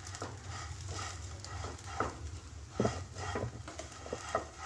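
A flat spatula stirring and scraping dry vermicelli around a non-stick kadai as it toasts in very little oil, in short irregular strokes over a steady low hum.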